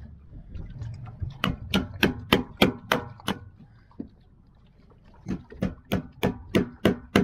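A metal spike hammered through the lid of a full tin can with a pair of pliers used as a hammer, punching holes in it. There are two runs of sharp strikes, about three a second.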